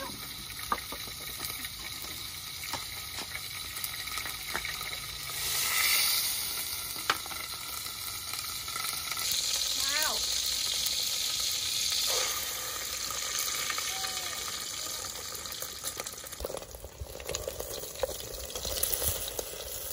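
Food frying in a pan, sizzling steadily, with a louder, higher hiss of sizzling for a few seconds around the middle.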